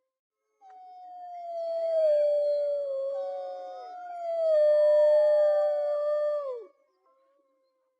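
Several wolves howling together in long, overlapping held notes that drift slowly down in pitch. The howls start about half a second in and end together with a downward drop near the end, followed by silence.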